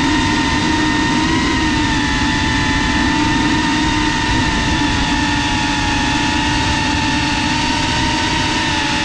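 FPV quadcopter's electric motors and propellers whining steadily in flight, the pitch wavering slightly as the throttle changes, over a rough rush of wind on the onboard camera.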